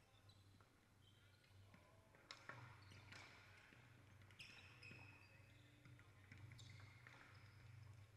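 Faint indoor hockey play in a sports hall: a few sharp knocks of stick on ball and short high squeaks of shoes on the wooden floor, over a steady low hum.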